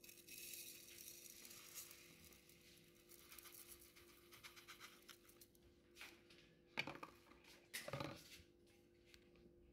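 Granulated sugar pouring into a dark pan: a faint patter of falling grains, strongest in the first few seconds, with a couple of light knocks in the second half.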